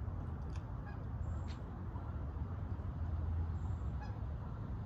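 Wind rumbling on the microphone throughout, with a couple of faint clicks early on. A duck or goose on the water gives a short call about four seconds in.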